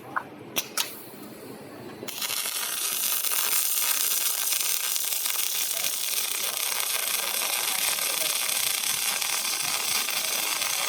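A robotic welder's arc: a few sharp clicks, then about two seconds in the arc strikes and runs as a loud, steady hiss.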